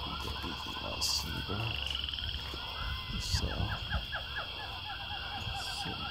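Outdoor animal calls: repeated short chirps, then a quick run of about a dozen falling notes in the middle, over a steady high-pitched tone and a low rumble.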